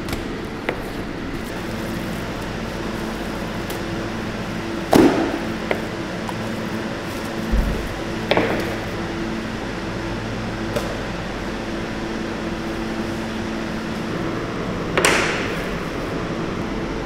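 Steady hum of processing-room machinery and ventilation. Over it come a few sharp knocks and slaps as meat and knives are worked on plastic cutting boards, the loudest about five, eight and fifteen seconds in.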